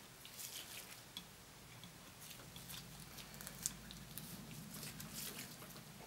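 Faint scattered clicks and rustles of handling as multimeter test probes and their leads are held against a TV speaker's connector pins by gloved hands, over a faint low hum.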